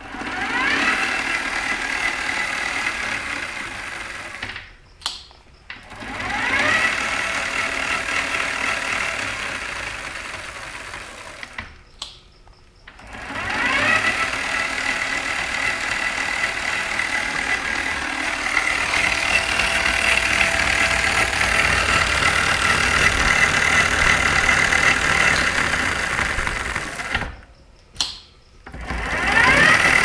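Electric bike's chain-drive motor run up on the throttle in a test after a rear-wheel replacement, spinning the chain and new rear wheel. Each run starts with a rising whine that settles into a steady whine; it stops three times for about a second with brief clicks in the pauses, and spins up again each time, four runs in all.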